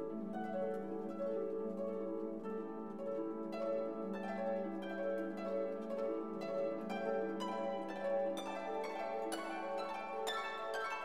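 Instrumental background music of plucked string notes over held lower notes; the plucking grows busier about three and a half seconds in.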